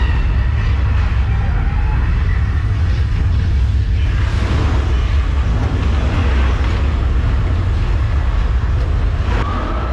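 Staged earthquake special effects in a mock subway station set: a loud, deep, steady rumble, joined about four seconds in by a broad hissing rush that eases near the end.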